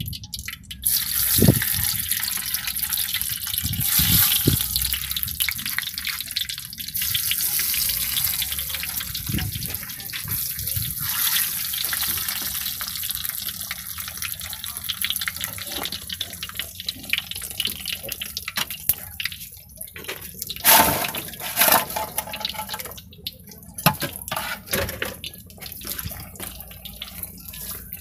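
Battered crabs deep-frying in a wok of hot oil: a steady, hissing sizzle with fine crackling. It is loudest in the first dozen seconds, then eases a little, with a few sharper louder pops in the last third.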